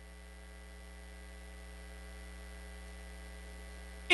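Steady electrical mains hum from the sound system, a low drone with a ladder of higher buzzing overtones, growing slightly louder over the pause.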